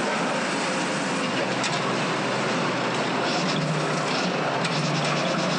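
Spinning machine turning a metal pressure-cooker part against a roller wheel: a steady running noise, with a low hum that grows stronger about three and a half seconds in.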